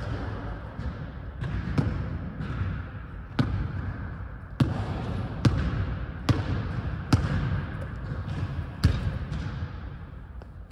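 Basketball bouncing on a hardwood gym court as a player dribbles. Each bounce is a sharp slap with a short echo off the large hall, coming at an uneven pace of roughly one a second.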